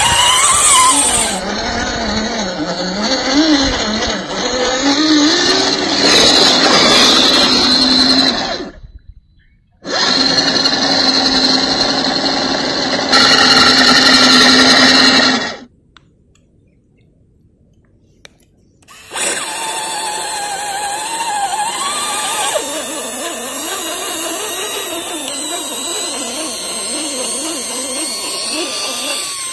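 Small electric motor and gearbox of an MN86K RC crawler whining, the pitch rising and falling with the throttle as it pushes through mud. It cuts out briefly about nine seconds in and again for a few seconds in the middle.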